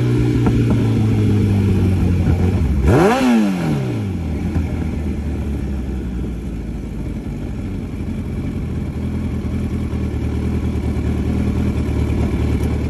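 Kawasaki ZX-14R inline-four engine running under way, with one quick rev up and back down about three seconds in, then a steady lower engine note.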